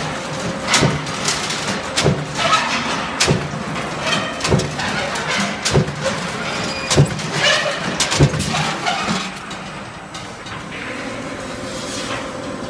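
Punch press on a solar mounting bracket line stamping holes in steel channel, a sharp knock about every 1.2 seconds over a steady machine hum. The knocks stop about ten seconds in.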